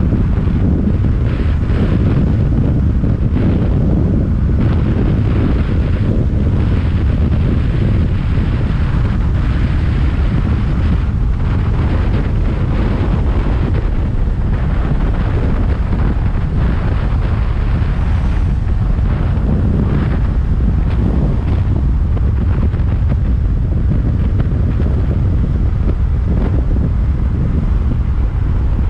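Wind rushing over the microphone of a motorcycle moving at road speed: a loud, steady low rumble with no clear engine note coming through.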